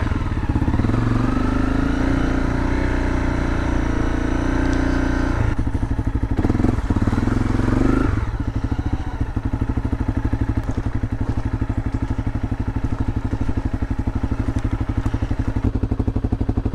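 Honda CRF250L's single-cylinder engine running on the trail, then dropping to a slow, steady low-rev putter about eight seconds in.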